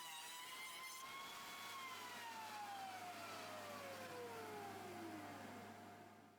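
Jointer running with a steady whine, then switched off: the whine falls steadily in pitch as the motor and cutterhead wind down, fading out near the end.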